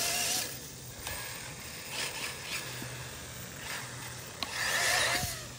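Arrma Typhon 6S 1/8-scale RC buggy's brushless motor whining under throttle. A loud burst cuts off about half a second in, and another burst rises and falls near the end.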